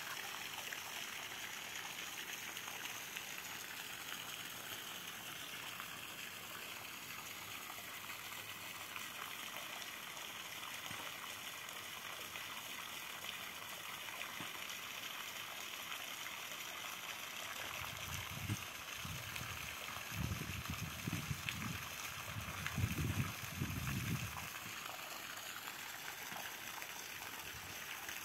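Steady trickle of running water feeding the pond. About two-thirds of the way through, low gusts of wind rumble on the microphone for several seconds.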